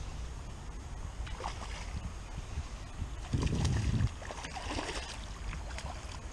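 Shallow water sloshing and lapping, with soft scattered splashes and a louder low rumble a little past halfway.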